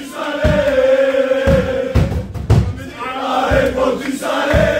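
Group of young men chanting a celebration song together in unison with long held notes, over low thuds about once a second.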